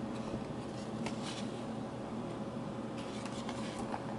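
Faint rustling and a few light ticks as a trading card pack is pulled from its cardboard display box, over a steady low hum.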